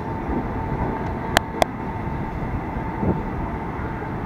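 Electric commuter train pulling away from the platform, a steady rumble of wheels on rail, with two sharp clicks close together about a second and a half in.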